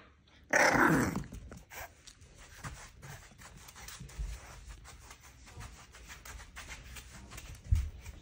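A 5-week-old English Bulldog puppy gives one short bark about half a second in, then its claws tick lightly and irregularly on the tile floor as it walks around.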